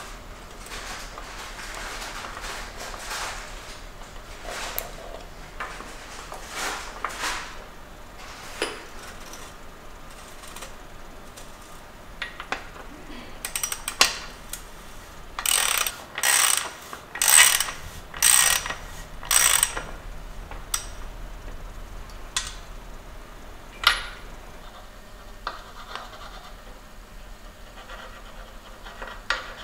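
Bicycle bottom bracket cups being threaded and tightened into the frame: metal parts scraping and turning, then a run of about six sharp ratchet clicks roughly a second apart midway, with another click a few seconds later.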